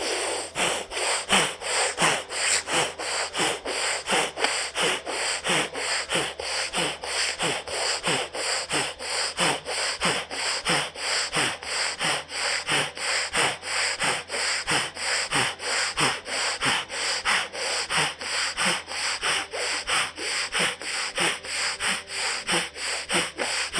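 Bhastrika pranayama: a woman breathing forcefully in and out through her right nostril alone in a fast, even rhythm of sharp nasal breaths, with the other nostril held closed.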